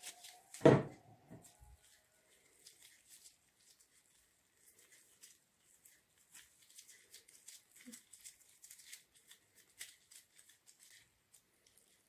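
Gloved hands pulling and tearing pieces off a bowl of risen yeast dough, giving faint sticky crackles and plastic-glove rustles. One thump just under a second in.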